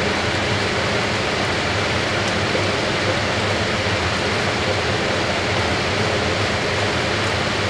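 Fisher & Paykel AquaSmart top-load washing machine with its drum spinning: a steady rushing noise with a faint low hum underneath.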